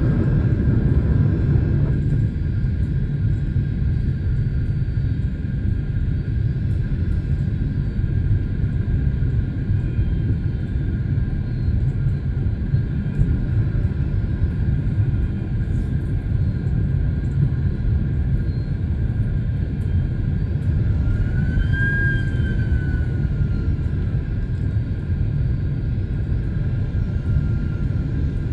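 Jet airliner cabin noise on the approach: a steady, loud low rumble of engines and airflow, with a thin steady tone above it. About three-quarters of the way through a brief whine rises and falls.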